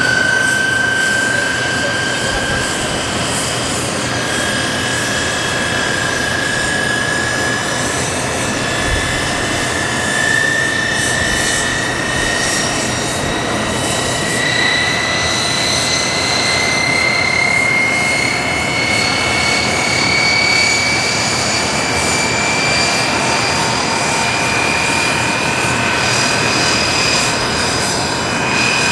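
Aircraft turbine engine running with a loud rushing noise and a high whine that climbs slowly and steadily in pitch.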